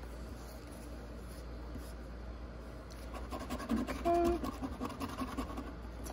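A coin scratching the coating off a paper scratch-off lottery ticket, in quick rapid strokes that begin about three seconds in. A brief hum from a voice comes about four seconds in.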